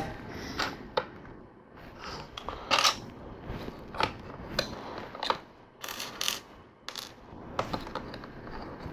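LEGO plastic bricks being handled and pressed together: a scattered run of small plastic clicks and clatters.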